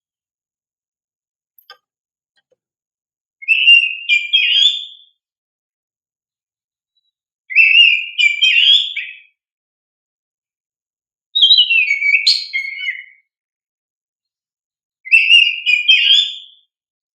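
Oriental magpie-robin (kacer) singing four short, loud whistled song phrases of about a second and a half each, separated by pauses of about two seconds.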